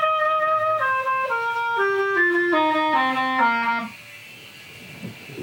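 Clarinet playing a short melody of distinct held notes that step mostly downward in pitch, stopping about four seconds in.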